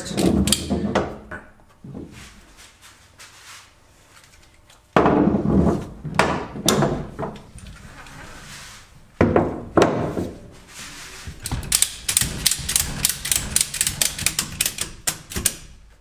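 Stainless steel retractable ratchet strap being pulled out, hooked and ratcheted tight over a wheel: clunks and rattling of the strap hardware, then a quick run of ratchet clicks in the last few seconds as the strap is cranked down.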